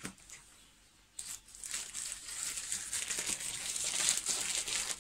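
Parcel packaging crinkling and tearing as it is pulled open by hand, starting about a second in and going on as a steady run of crackles.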